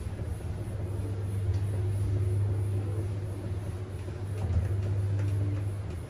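Target Lifts passenger lift car travelling down one floor: a steady low hum of the lift in motion, with no chimes or door sounds.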